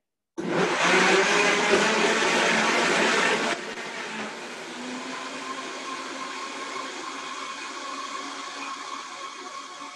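Vitamix blender starting up and running at speed, puréeing strawberries and honey. It kicks in suddenly and is loud for the first few seconds, then drops sharply to a lower, steady whir.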